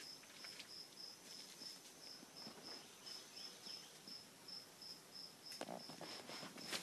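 Faint, steady chirping of a cricket: a high chirp repeated about three times a second. A brief rustle about five and a half seconds in.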